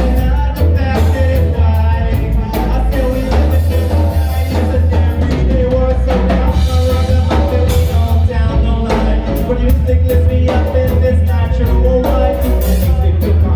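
Live band playing a song: a drum kit keeping a steady beat over a loud bass line, with held instrument notes above.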